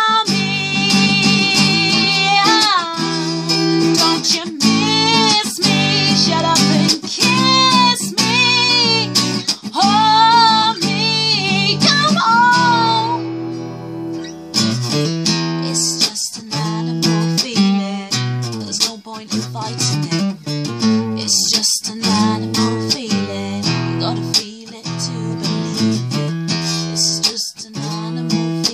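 Woman singing over a strummed cutaway acoustic guitar. About halfway through the voice stops and the guitar plays on alone, strummed chords with sharp strokes.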